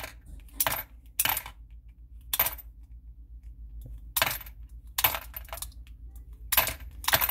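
Brass .22 Magnum cartridges being thumbed out of a stainless pistol magazine one at a time and dropping into a box: about eight sharp metallic clicks at uneven intervals.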